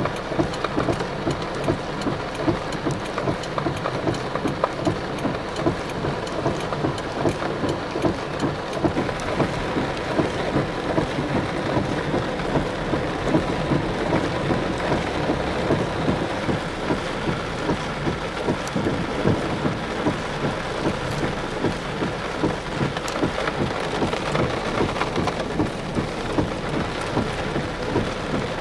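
Heavy tropical rain falling steadily, a dense hiss of drops striking the ground and flood water.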